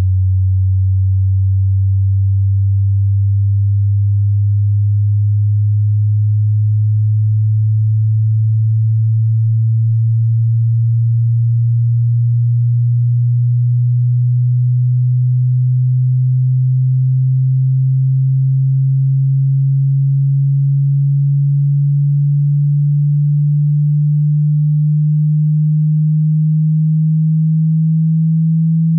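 Pure sine test tone from a hearing-test frequency sweep: a single very low, steady tone gliding slowly and evenly upward in pitch.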